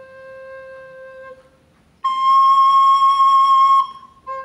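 Soprano recorder playing a held low C, then the C an octave higher, louder and held for about two seconds, then the low C again near the end. The notes contrast low and high pitch.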